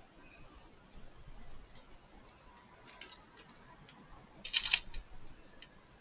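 Small clicks and a short clattering rattle, loudest about two-thirds of the way in, from hands handling a wall light switch and a screwdriver during rewiring.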